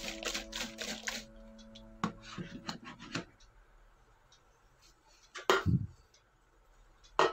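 Signoraware plastic storage containers and lids being handled and stacked: a quick run of plastic clicks and rubbing in the first second, a few more clicks around two to three seconds in, and a single thump about five and a half seconds in.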